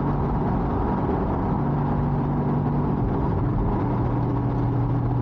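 Porsche 981's flat-six engine running steadily under way. Its tone drops to a lower, steady pitch about four seconds in, as the revs fall.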